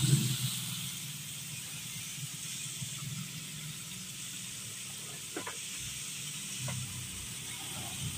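Battered chicken pieces deep-frying in a wok of hot oil, a steady sizzle.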